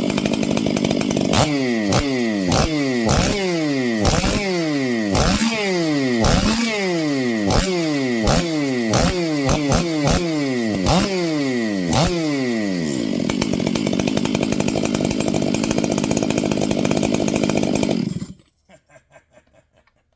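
Stihl MS 500i fuel-injected two-stroke chainsaw running after its no-start fault was repaired. It is blipped about ten times, roughly once a second, each rev falling straight back, then runs steadily and is shut off about 18 seconds in.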